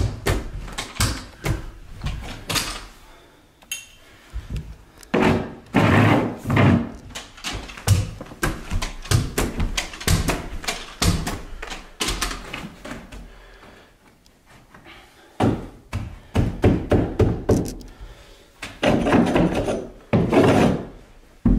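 Carpet knee kicker being bumped with the knee again and again, a series of dull thumps in quick clusters, as the carpet is stretched toward the wall to pull out ripples.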